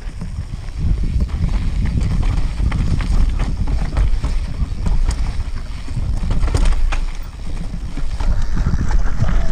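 Mountain bike riding down a rocky dirt trail: heavy wind rumble on the camera's microphone, with frequent sharp clicks and knocks as the bike rattles over stones and roots.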